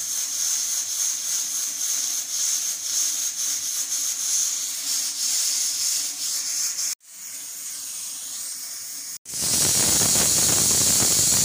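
Stovetop pressure cooker hissing steadily as steam escapes at its weight valve: the cooker has come up to pressure and the spinach inside is cooked. The hiss drops away abruptly about seven seconds in, then from about nine seconds in a much louder, fuller rush of venting steam takes over.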